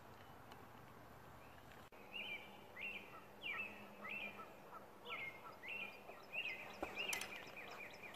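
A bird calling in a regular series of short sweeping chirps, about one and a half a second, starting about two seconds in, over faint outdoor background noise.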